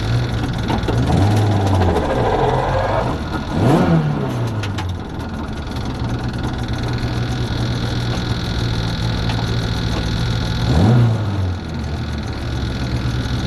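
Rally car engine idling, heard from inside the cabin, with two quick throttle blips that send the revs up and let them drop back: one about four seconds in, the other near the end.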